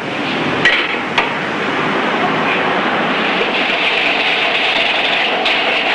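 Steady mechanical clatter of office machines such as automatic typewriters and mailing equipment, with two sharp clicks about a second in.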